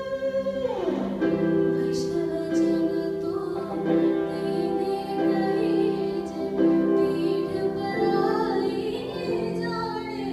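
Live fusion band music: a Yamaha electronic keyboard holding sustained chords with an electric guitar, and a woman singing a wavering, ornamented melody. A falling pitch slide about a second in.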